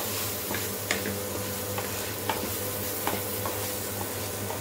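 Wooden spatula stirring and scraping an onion-tomato masala with sambar powder and turmeric in a frying pan, over a steady sizzle of the spices frying in oil. Sharp scrapes and taps of the spatula on the pan come about once a second.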